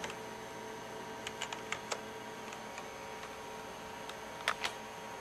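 Computer keyboard keys clicking: a few separate key presses, a quick run of them between one and two seconds in and two more about four and a half seconds in, over a steady faint electrical hum.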